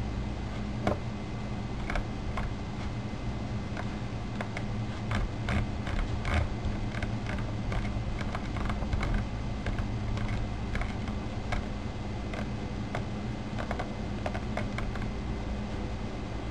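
Typing on a computer keyboard: irregular key clicks, quicker in the middle, over a steady low hum.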